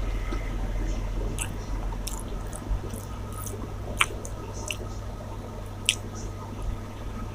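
Close-up wet chewing and mouth smacking of someone eating a rice and chicken curry meal, with scattered sharp clicks about a second apart, the sharpest about four seconds in. A steady low hum runs underneath.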